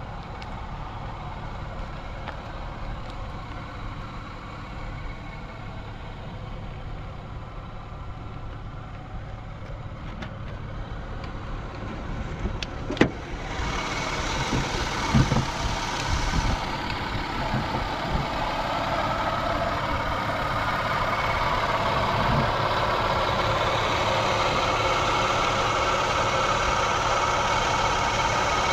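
A 1994 Lexus ES300 running steadily. A sharp click comes about halfway through, then a few thumps, and the car's noise grows louder and fuller toward the end.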